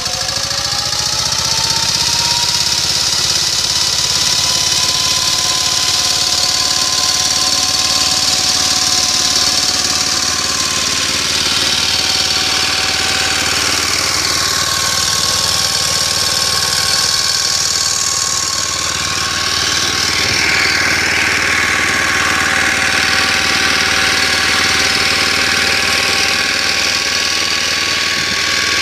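Motor Sich walk-behind tractor's engine speeding up over the first second or two, then running steadily in second gear while pulling a disc hiller through potato rows.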